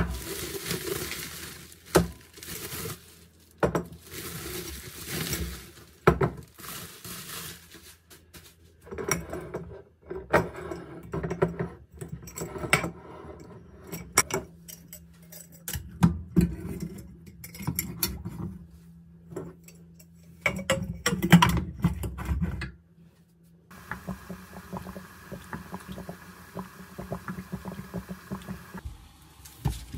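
Bubble wrap rustling as two glass clip-top jars are unwrapped, then glass clinking and the wire clasps of the jars clicking and knocking as they are handled. Near the end, water bubbling steadily in a pan where the jars sit upside down being sterilised.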